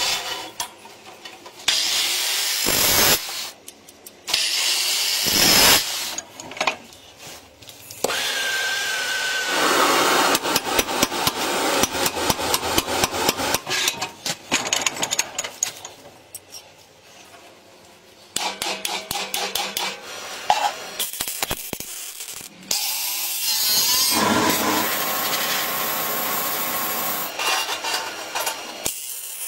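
Metalworking on steel rod and sheet in a string of short cuts: several seconds-long bursts of harsh cutting and grinding noise, alternating with long runs of fast, even hand-tool strokes on steel held in a bench vise.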